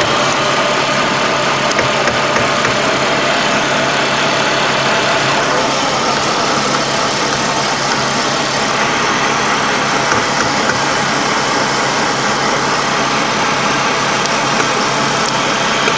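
Heavy armoured vehicle's diesel engine running steadily, heard from inside the hull as a loud, even engine noise with hiss.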